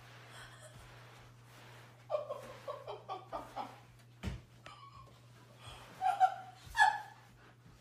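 Laughter: a run of short, stepping-down ha's about two seconds in, then two louder high-pitched laughs or squeals near the end, over a steady low hum.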